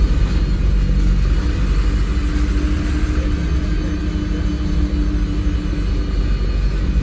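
MAN 16.240 bus's diesel engine and driveline running under way, heard inside the passenger cabin: a steady low rumble with a steady humming tone over it for much of the time.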